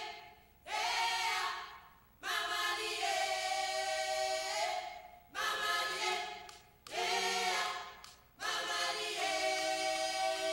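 A group of women singing together a cappella as a choir, in several held phrases with short breaks between them and no drums playing.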